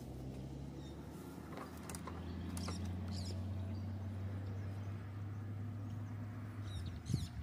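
Vehicle engine idling with a steady low hum, and brief high bird chirps a couple of seconds in and again near the end.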